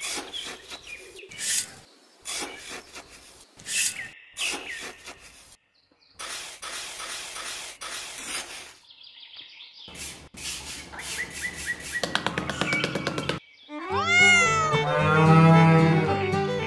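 Small metal hand trowel scraping and scooping damp sand in repeated strokes, then a run of quick taps. About fourteen seconds in, background music starts with a sliding, high tone.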